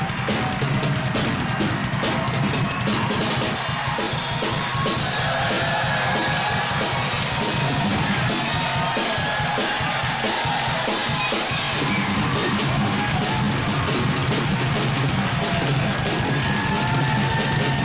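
Drum kit played in a continuous rock beat, with drums and cymbals struck throughout.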